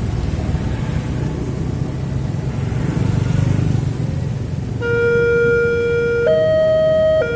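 Low rumble of road vehicles, then about five seconds in the level crossing's electronic warning alarm starts. It alternates between a lower and a higher held tone, each lasting a second or so, signalling that a train is approaching and the barriers are about to close.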